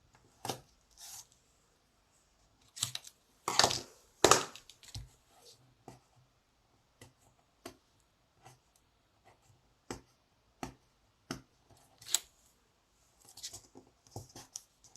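Strong double-sided Tear & Tape being torn and its backing peeled off, with card stock handled and pressed down. It makes a scatter of short rustling and tearing sounds, the loudest a little before halfway.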